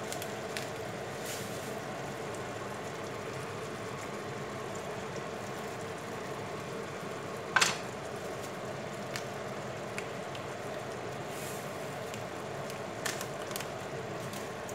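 Chicken breasts simmering in their juices in a frying pan, a steady bubbling sizzle, with one sharp clack about halfway through.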